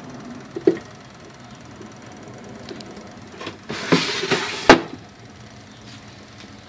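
A vertical countertop rotisserie oven running, with a steady low hum from its rotating motor. About four seconds in, a brief rustling noise rises and ends in a sharp knock.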